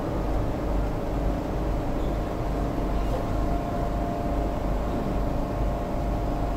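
Steady low rumble and hum inside an MRT train car standing at the platform, not yet moving. A faint steady tone comes in about three seconds in.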